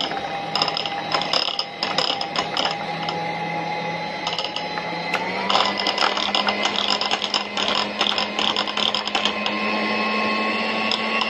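Electric hand mixer running with its two beaters whipping cream in a glass bowl, with scattered clicks and rattles. The motor's pitch steps up about five seconds in as it speeds up.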